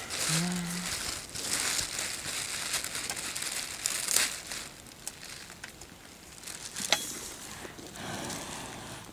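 Crinkly rustling and crackling, the sound of a plastic bag being crumpled as a baby elephant's trunk works at it, with a louder crackle about four seconds in. A brief low hum of a voice comes just after the start.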